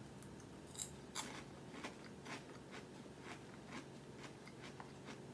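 A person chewing a bite of Lay's Poppables, a light, puffed potato snack: faint, irregular crunches, about two or three a second.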